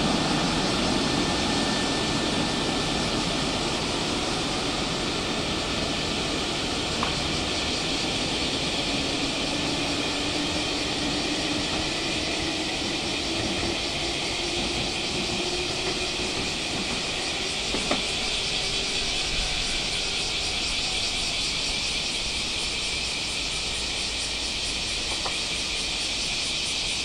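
Electric train pulling away, its motor hum slowly rising in pitch over a steady hiss, with a single click part way through.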